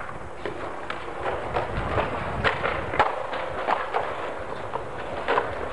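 Skateboard wheels rolling on concrete paving with a steady rumble, and irregular sharp clacks and thuds of boards snapping and landing, about eight in all.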